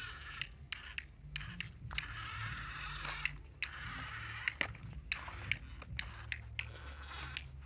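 Small DC motors of a homemade model tractor running under load as it pulls a mud-loaded trolley, a steady low hum, while its wheels crunch and scrape over loose dirt with many sharp clicks.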